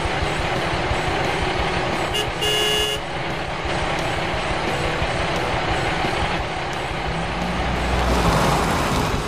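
Heavy truck engine running steadily, with a short horn toot about two and a half seconds in. The engine rumble swells louder near the end.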